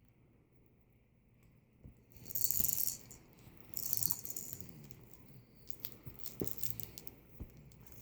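Small hard objects rattling, shaken in two short bursts, then a run of scattered light clicks and taps.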